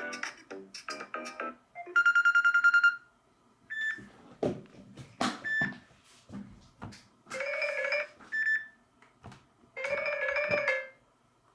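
Samsung Galaxy S8 ringtones previewed one after another: short electronic ringtone melodies, each lasting about a second with brief gaps between. The loudest is a rapidly pulsing buzzy tone about two seconds in.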